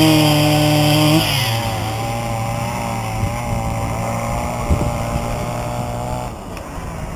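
An engine running steadily, its pitch dropping as it slows about a second in, then running on at the lower speed until it falls away near the end.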